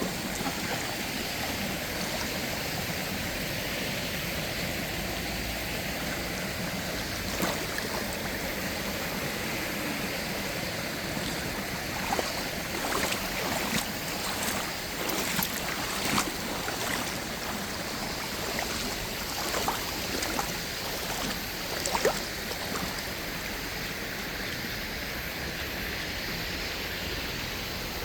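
Shallow spring-fed stream flowing steadily, with small splashes and ticks now and then, mostly in the middle stretch.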